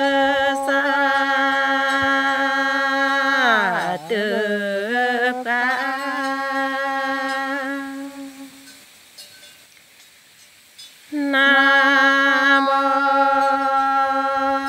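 A single unaccompanied voice chanting a Karen tha (sung poem) in long, wavering held notes. About four seconds in the pitch slides down and back up. Roughly two-thirds of the way through there is a pause for breath of a couple of seconds, then the voice comes back on a held note.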